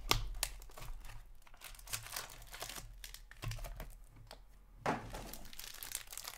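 Plastic shrink-wrap and the wrapper of a hockey card pack crinkling and crackling as a hobby box is unwrapped and the pack is pulled out by hand, with a louder crackle about five seconds in.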